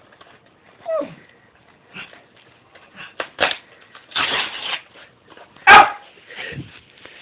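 A dog whining and barking: a falling whine about a second in and one loud, sharp bark near the end, with the rustle of a mail package being opened in between.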